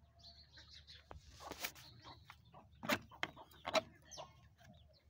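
Chickens clucking, fairly faint, with a few short sharp clucks standing out about three and four seconds in.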